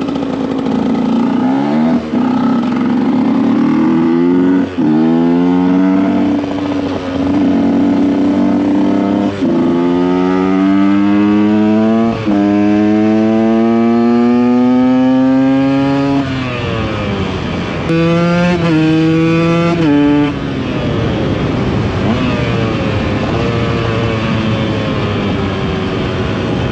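KTM EXC 125 two-stroke single-cylinder engine accelerating hard through the gears, its pitch climbing and then dropping at each upshift about 2, 5, 9 and 12 seconds in. It then comes off the throttle, picks up briefly again, and runs steadily at a lower pitch for the last several seconds.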